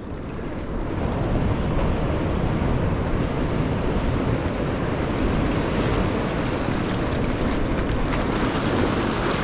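Strong wind blowing across the microphone over the rush of waves washing on the shore: a steady, heavy noise without any pitch.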